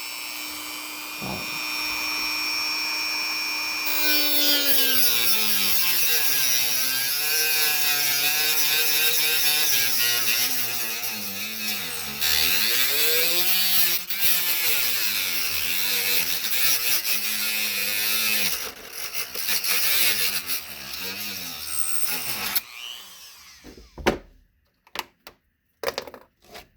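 Dremel rotary tool with a cutoff wheel cutting HO scale rail. A steady high whine at first; from about four seconds in, a harsh grinding hiss takes over and the motor's pitch sags and recovers again and again as the wheel is pressed into the rail. It stops about 23 seconds in, followed by a few light clicks.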